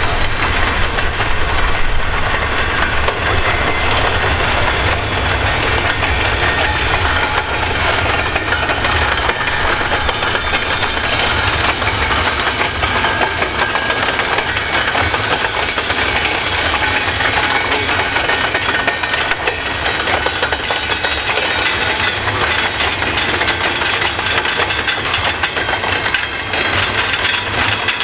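Double-stack container well cars of a freight train rolling past steadily: a continuous low rumble of steel wheels on the rails.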